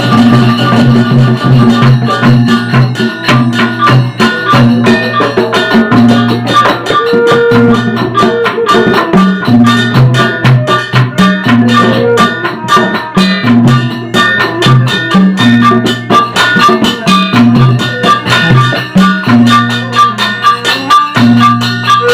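Sasak gamelan ensemble playing a gending for wayang Sasak: drums and struck percussion in a fast, steady rhythm over a low melodic pattern that repeats in a regular cycle.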